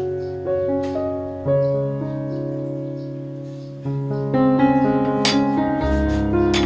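Background music: piano-led instrumental with sustained chords, fuller from about four seconds in.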